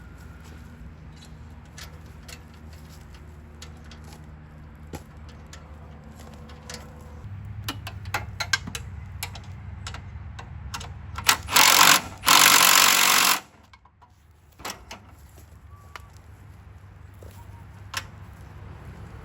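Tools and metal parts handled with scattered clicks and knocks, then a power tool runs in two short bursts, the second about a second long, a little before the end.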